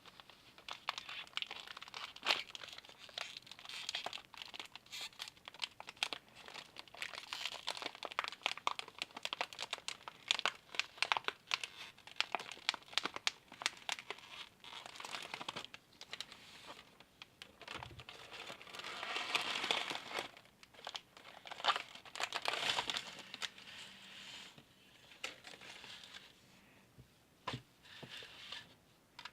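Plastic cookie wrapper crinkling and rustling as it is handled, a dense run of crackles with louder, fuller crinkling about two-thirds of the way through.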